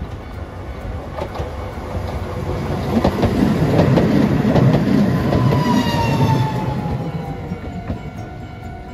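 Hiroden Green Liner low-floor articulated tram passing close by. It grows louder to a peak in the middle, with wheels clicking over rail joints and a falling whine as it goes past.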